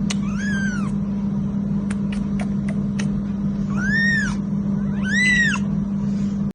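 A cat meowing three times, each meow rising and then falling in pitch, the last two louder than the first. A few sharp clicks come between the first and second meows, over a steady low hum.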